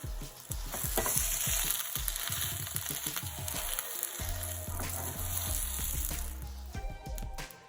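Egg omelette sizzling in a hot frying pan, with scattered clicks and scrapes of a utensil working it in the pan. The sizzle fades out near the end.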